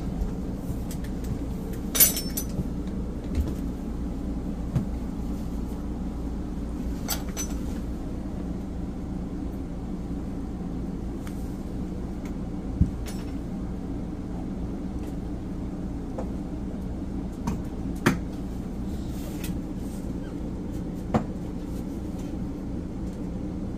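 Scattered clicks and knocks from handling the refrigerator's wooden trim and cabinet, over a steady low hum.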